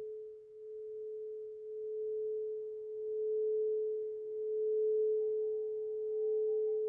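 Crystal singing bowls ringing with one pure sustained tone that swells and fades in slow waves; a fainter, higher bowl tone joins about five seconds in.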